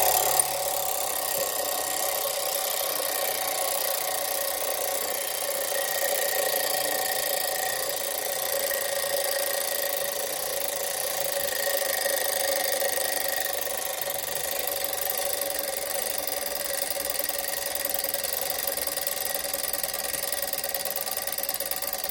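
Vintage Landau wind-up alarm clock's alarm going off, its hammer striking the bell rapidly in one long, steady ring. The ring comes out buzzy and rattly rather than clean because the bell has been put back on too tight.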